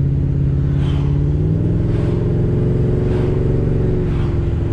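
Engine of a freshly cammed Holden VX Commodore heard from inside the cabin, pulling under acceleration from a rolling start. The revs step up about a second and a half in and then hold.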